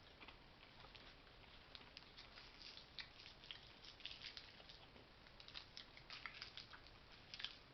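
A person chewing old, dried-out chewing gum from a military ration, heard as a faint, irregular run of small crackling clicks as the brittle gum is worked.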